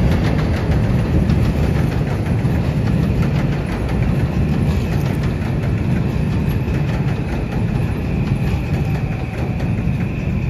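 Metro-North M8 electric multiple-unit train passing, a steady rumble of wheels on rail with rapid clicking over rail joints, easing slowly as the cars go by. A thin high whine comes in about halfway through.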